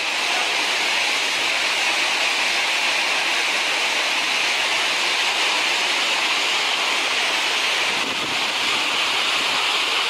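The Krimml Waterfalls, a large mountain waterfall, rushing steadily: a continuous, even hiss of falling water that dips slightly about eight seconds in.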